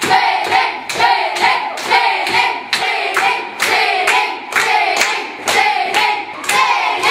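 A group of children clapping in a steady rhythm, about two claps a second, while singing together.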